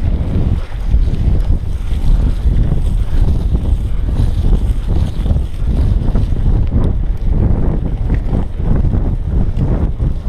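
Cyclocross bike ridden fast over a bumpy dirt track: tyres rumbling on the ground and the bike rattling, with frequent knocks from the ruts, under heavy wind buffeting on the action camera's microphone.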